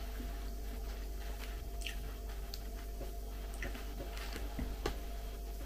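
Close-up eating sounds: wet chewing of a sushi roll, with short clicks of wooden chopsticks picking at a plastic tray, over a steady low hum.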